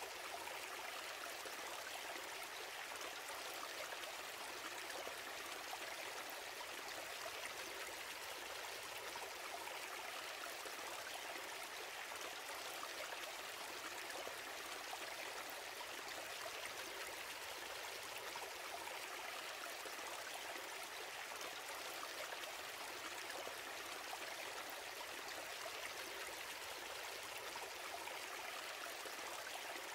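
A steady, even hiss, mostly in the middle and high pitches, unchanging from start to end.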